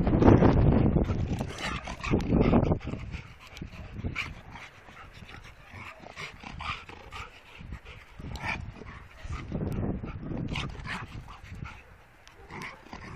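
Dogs play-fighting, a cocker spaniel and a black-and-white mixed-breed dog, with short yips and barks. It is loudest in the first two or three seconds, then goes on as scattered short sounds.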